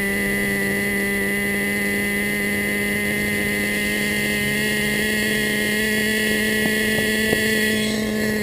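Traxxas Slayer RC truck's small two-stroke nitro engine running at a steady pitch, picked up close by the truck's onboard camera while the truck lies on its roof.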